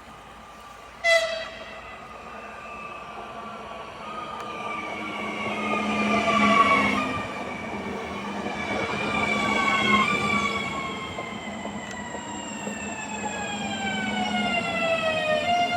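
Train at the line: a short horn blast about a second in, then a whine of several tones that slowly falls in pitch as the train runs past.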